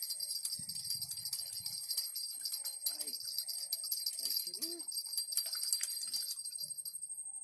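Shrill insect chorus, a dense, rapidly pulsing high-pitched buzz, thinning out briefly near the end, with a few faint low calls underneath.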